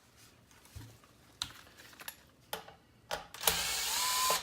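Light clicks and taps of handling a part on a workbench, then a small handheld power tool, such as a cordless screwdriver, whirs for about a second near the end. Its motor pitch rises and then holds before it stops sharply.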